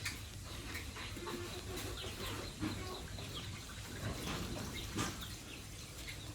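Chickens clucking in scattered short calls over a steady low hum.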